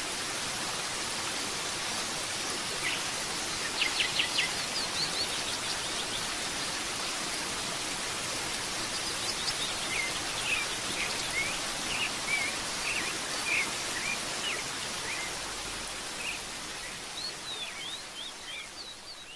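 Steady rushing of a waterfall with birds chirping and calling over it in short, quick notes; the whole sound fades down near the end.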